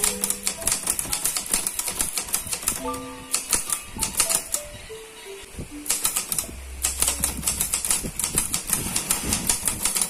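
Clover 747TF manual portable typewriter being typed on, the typebars clacking against the paper in quick irregular runs with brief pauses. Soft background music with a melody plays underneath.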